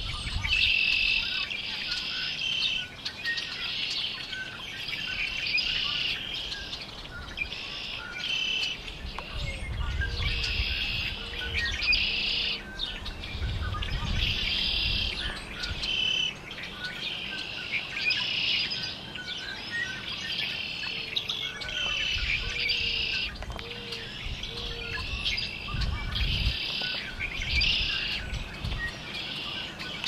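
Blackbirds singing and chattering in a dense, continuous chorus, phrase after phrase with only brief gaps.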